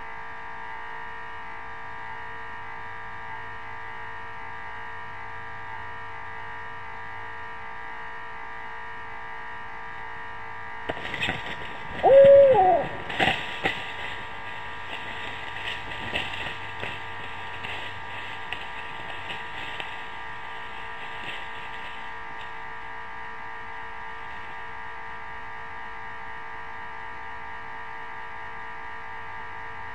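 An owl gives one loud hooting call about twelve seconds in that rises and then falls in pitch, amid a short run of clicks and scratches that trail off over the next several seconds. A steady electrical hum of several even tones runs underneath.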